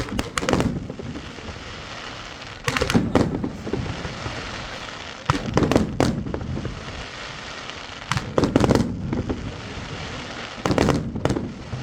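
New Year's Eve fireworks going off: five clusters of sharp bangs and cracks, one about every two and a half seconds, over a steady background of distant crackling.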